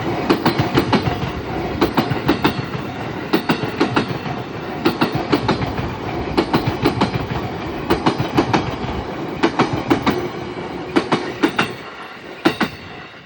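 JR East E233-series electric commuter train passing, its wheels clicking over the rail joints in quick repeated groups of beats over a steady running rumble, fading away near the end.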